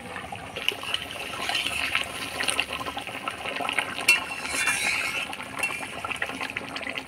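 Hilsa in mustard gravy bubbling and simmering in a pan, with a sharp clink about four seconds in.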